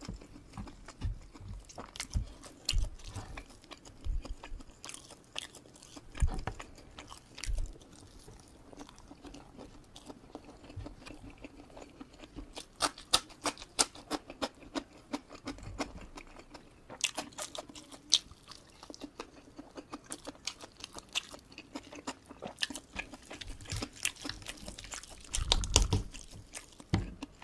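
Close-up mouth sounds of someone chewing and crunching fried village chicken eaten by hand with rice, in irregular wet crackles that get busier in the second half. A few soft low knocks come in between.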